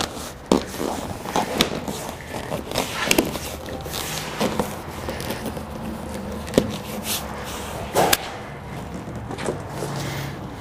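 A Mazda Miata's convertible top boot rustling as it is pulled and tucked into place by hand, with several sharp clicks and knocks scattered through, the loudest about half a second in and near eight seconds.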